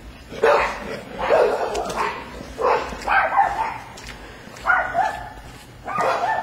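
Dog barking repeatedly: about seven barks in short bursts with uneven gaps.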